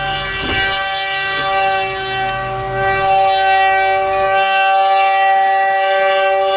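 Locomotive air horn held in one long, steady multi-note chord, blown for a road crossing. A low rumble underneath drops away about four seconds in.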